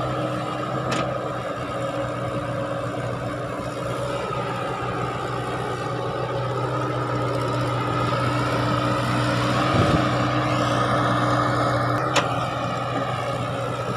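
Caterpillar hydraulic excavator's diesel engine running steadily while it digs and swings loads of soil, with a sharp metallic clank about a second in and another near the end.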